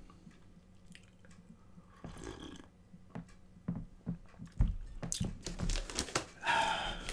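A person drinking coffee from a mug: quiet sipping and swallowing with small mouth noises, plus a few light clicks and knocks.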